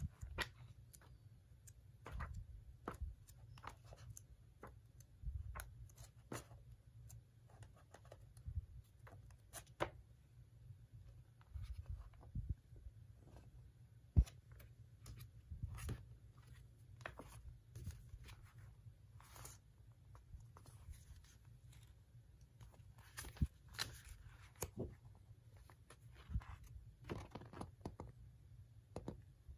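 Magazine pages being turned by hand: quick paper swishes and rustles with soft clicks and taps of fingers on the paper, coming irregularly, a few page turns louder than the rest.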